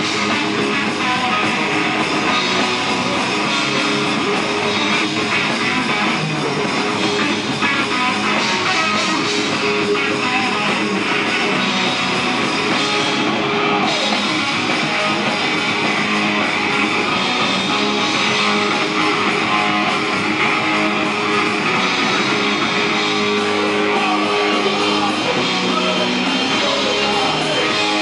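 Live rock band playing loud and steadily: electric guitars over a drum kit, with no break.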